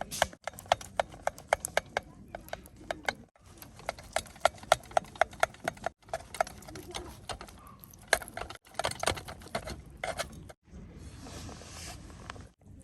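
A rapid, even series of sharp clicks, about four to five a second, broken off by several sudden cuts, with a softer hiss near the end.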